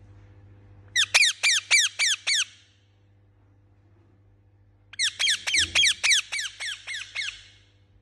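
Indian ringneck parakeet giving angry, harsh repeated calls in two rapid bouts of about four notes a second, each note sliding down in pitch: a short burst of about six notes, a pause, then a longer burst of about ten.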